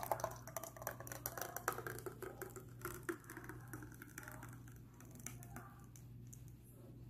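Thick blended smoothie pouring from a blender jar into a glass tumbler: faint splashing with many small clicks, busiest in the first few seconds and then thinning out, over a steady low hum.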